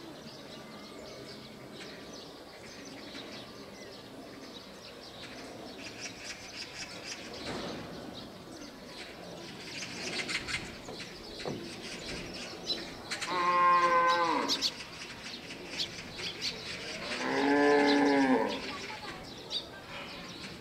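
Asian elephant calling twice, two loud calls each over a second long, the second rising and then falling in pitch. Faint background noise with scattered light clicks comes before the calls.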